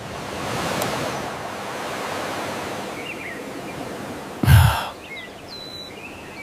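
Outdoor ambience: a steady rushing noise that swells in the first two seconds, with a few faint chirps. A single loud thump comes about four and a half seconds in.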